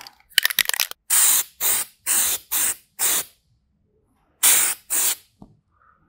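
Aerosol can of dye-penetrant developer sprayed in short bursts: a quick run of clicks at the start, then five hisses in quick succession, a pause, and two more hisses near the end.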